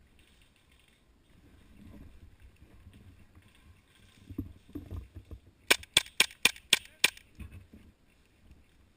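Airsoft gun firing six quick shots, about four a second, in a burst of roughly a second and a half, after some low, dull handling thumps.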